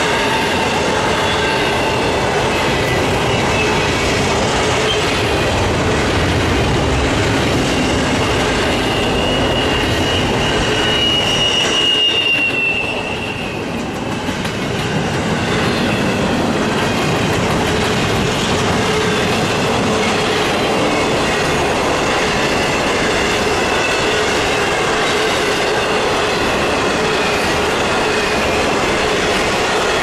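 Intermodal freight cars (double-stack well cars, then trailers on flatcars) rolling past on the rails: a steady loud rumble of wheels on track with thin, high squealing tones from the wheels. The noise eases briefly about halfway through, then returns.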